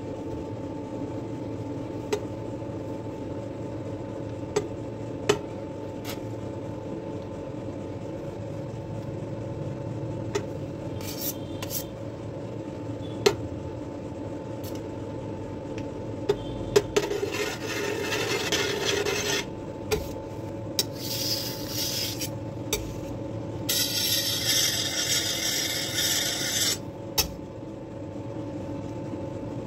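Whipped cream being scraped and spread over a cake with a metal palette knife, in three rasping stretches of a few seconds each in the second half. A few sharp metal taps come earlier, over a steady background hum.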